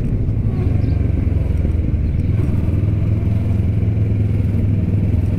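A motorcycle engine running at steady low revs while riding, with road noise.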